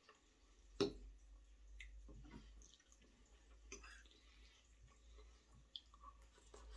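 A metal fork clicking and scraping against a plate as food is cut and eaten, with a sharp click about a second in. Faint wet mouth sounds of eating come between the clicks.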